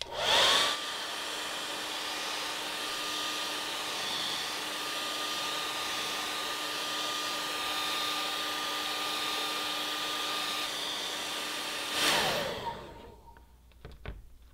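Handheld hair dryer switched on, its motor whine rising quickly to a steady pitch over the rush of blowing air. It runs steadily for about twelve seconds, then is switched off and winds down with a falling whine. A few light clicks come near the end.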